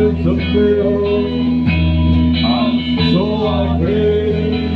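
Live band music, loud and steady: electric guitar over sustained bass notes, with pitches that bend and slide.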